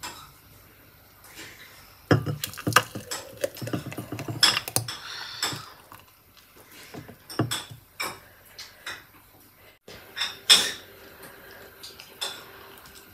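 Glass clinking and knocking: a glass blender jar tapping against a drinking glass as a blended strawberry milkshake is poured into it. Scattered sharp clicks come irregularly from about two seconds in until near the end.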